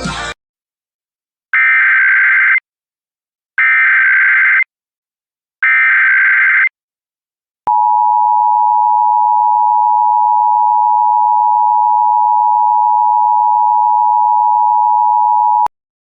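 Emergency Alert System tones: three one-second bursts of the SAME digital header, about a second apart, then the EAS two-tone attention signal held steadily for about eight seconds and cutting off sharply. They announce an AMBER Alert (child abduction emergency).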